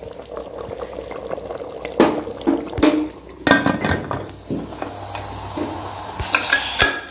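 Metal ladle stirring boiling chicken gravy in an aluminium pressure cooker, with liquid sloshing and several sharp clanks of the ladle against the pot, then a clatter of metal near the end as the cooker lid goes on.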